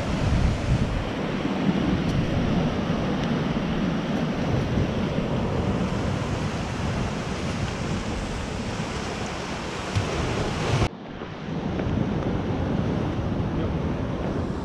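Sea surf breaking and washing over a rocky shore: a steady rush of waves, with wind on the microphone.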